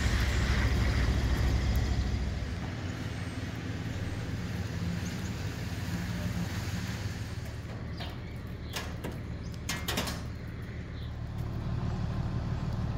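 Low rumble of road traffic, louder for the first couple of seconds and then settling to a steady hum, with a few short clicks about nine to ten seconds in.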